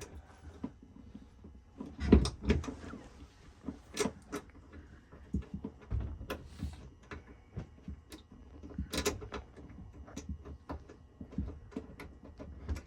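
Irregular metallic clicks, taps and knocks of hands and a socket wrench working on a nut and the hard fuel-line fittings in a tight space, with louder clunks about two seconds in and about nine seconds in. They are the sounds of trying to start a stubborn nut on a fitting.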